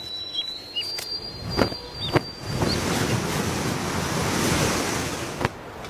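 A rushing, wind-like noise that swells through the middle and then fades. In the first two seconds there are a few short, high, falling chirps and a couple of sharp ticks.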